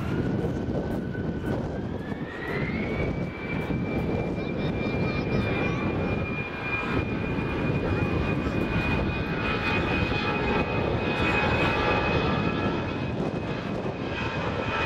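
Air France Airbus A318's twin CFM56 turbofan engines spooling up for takeoff: the whine climbs in pitch over the first few seconds, then holds at a steady high whine over a heavy rumble as takeoff thrust is set.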